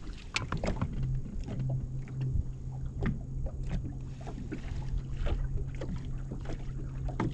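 Bow-mounted electric trolling motor running with a steady low hum that starts about a second and a half in, over irregular knocks and water slapping against a fiberglass bass boat's hull.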